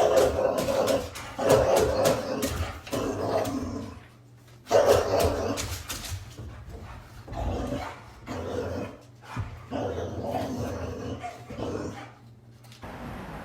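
A dog barking and growling in repeated outbursts of about a second each, at an uneven pace.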